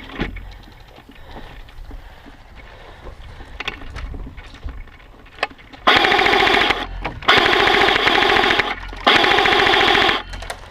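Airsoft gun firing on full auto in three long bursts, close by, starting about halfway through, with short pauses between them. Before the bursts there are only a few faint sharp clicks.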